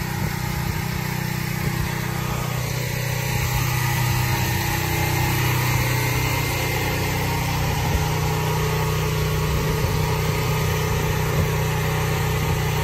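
Generator engine running steadily at a constant speed.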